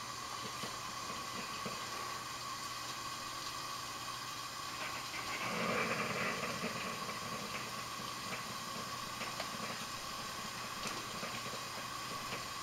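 Stovetop kettle heating on a gas burner, hissing steadily with a faint steady tone. About halfway through, a louder breathy noise lasts about two seconds.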